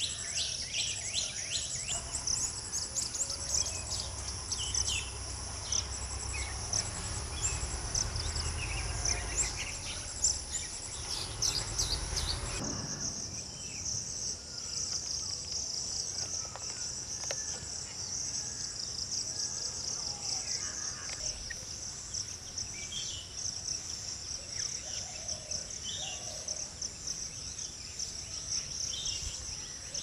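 Steady, high-pitched chorus of crickets and other insects, with scattered short bird calls over it. A low rumble under the first part stops suddenly about twelve seconds in.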